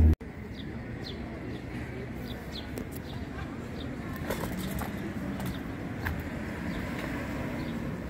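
Street ambience: a steady traffic hum with birds chirping on and off throughout. A cello tone cuts off abruptly at the very start.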